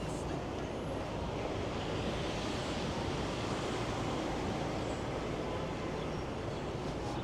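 Steady city street traffic noise, with a vehicle passing and swelling slightly about two to four seconds in.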